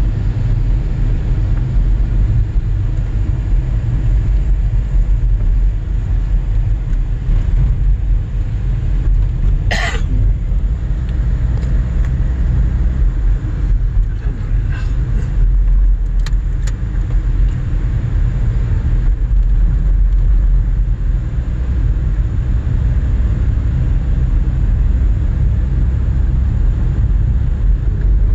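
Steady low rumble of a car driving along a busy road, heard from inside the cabin. A single brief, sharp sound comes about ten seconds in, and a couple of fainter ticks follow a few seconds later.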